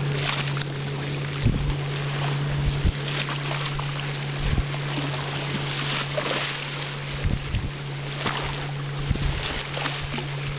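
A motorboat engine running steadily at one low pitch, with water wash and several gusts of wind buffeting the microphone.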